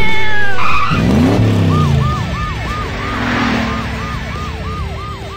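Cartoon police motorbike sound effects: a brief loud pitched swoop at the start, then the engine revving up, then a police siren wailing over and over, about three cycles a second.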